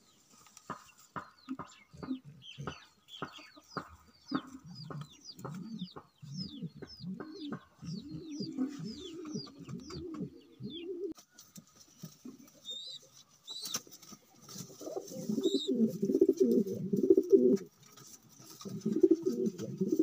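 Domestic pigeons cooing in their nest boxes: low, rolling coos through the first half and again near the end. Over the first half there is also a quick series of short, high, falling chirps, with scattered sharp clicks.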